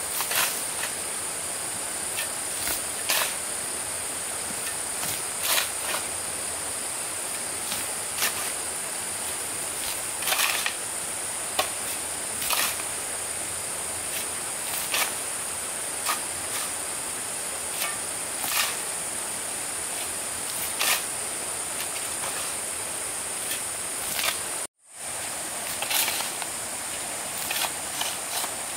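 Insects droning steadily at a high pitch, with a hand tool striking about every two and a half seconds. The sound cuts out for a moment near the end.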